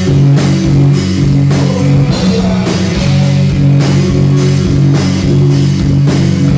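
Rock band playing live: a drum kit keeping a steady beat, about two hits a second, under electric guitar and bass guitar.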